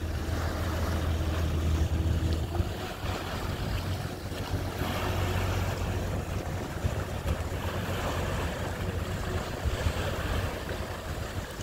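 Inshore fishing boat's engine running steadily as it passes close by, with water rushing and churning in its wake and wind on the microphone. The engine hum is clearest for the first couple of seconds, then the rush of water takes over.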